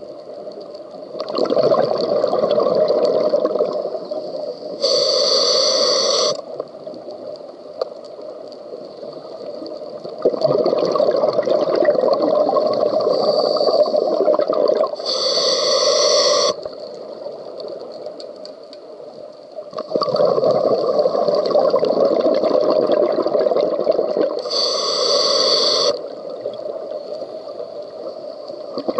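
Scuba diver breathing through a regulator underwater: three breaths, each a long rumble of exhaled bubbles followed by a short, bright hiss of inhaled air through the demand valve, about every nine seconds.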